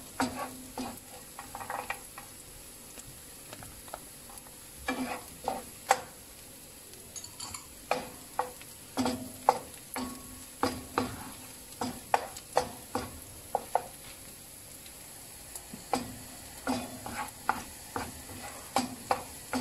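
Wooden spoon stirring and knocking against a non-stick frying pan in irregular strokes, each knock ringing briefly. Under it, chopped onion and garlic sizzle lightly as they sauté in olive oil. The stirring pauses twice for a couple of seconds.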